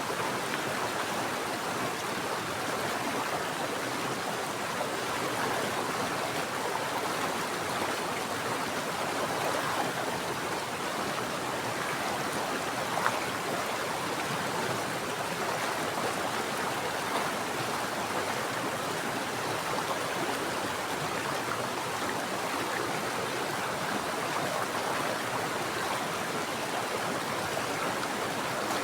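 Mountain stream water flowing steadily, with one brief sharp tick a little before the middle.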